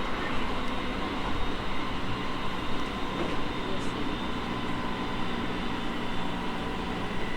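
JR East E217 series electric train running, heard from inside the car: a steady rumble of wheels on rail and running gear, with faint steady whine tones from the drive equipment.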